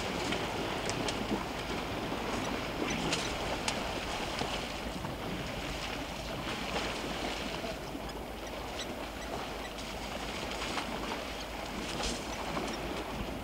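Steady rushing outdoor noise, mostly wind on the microphone, with a few faint, short high ticks.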